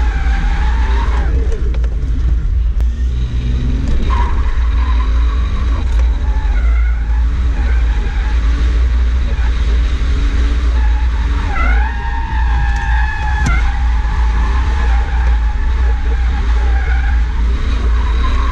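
Toyota JZX100's engine heard from inside the cabin during a drift run, revs rising and falling, with the tyres skidding and squealing over a heavy steady rumble. About twelve seconds in, the pitch climbs sharply.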